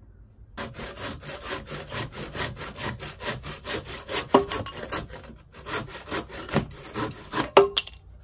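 Hand saw cutting through a thin wooden strip with quick back-and-forth strokes, about three to four a second, starting about half a second in and stopping just before the end.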